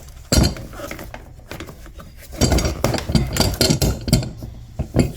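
Metal clinks, knocks and rattles of a fuel pump lock ring tool being handled and fitted: a sharp knock early on, a busy clatter in the middle and another knock near the end.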